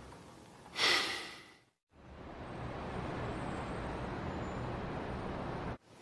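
A man's heavy sigh, one long breath out about a second in. It is followed by a steady, even background hiss that cuts off just before the end.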